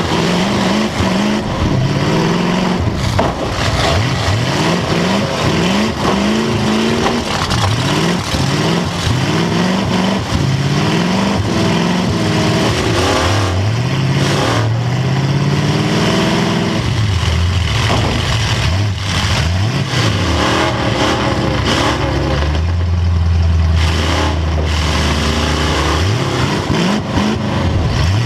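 A demolition derby car's engine, heard from inside the car, revving hard up and down over and over as it accelerates, backs up and turns. About three-quarters of the way through it holds a steady low note for a couple of seconds.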